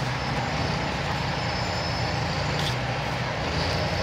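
Heavy-haul truck's diesel engine running steadily as it pulls a multi-axle trailer with an oversize load slowly round a corner, a low steady drone. A short hiss cuts in about two and a half seconds in.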